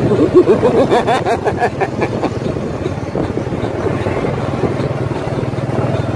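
Road noise from riding along a street: a steady low engine hum with traffic, louder and more uneven in the first two seconds or so.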